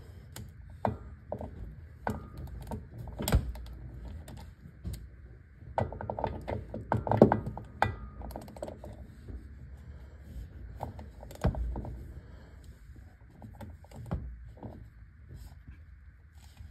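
A socket ratchet clicking in short runs and metal tools clinking and knocking as bolts are fastened at a driveshaft flange, with the quickest run of clicks about six to eight seconds in.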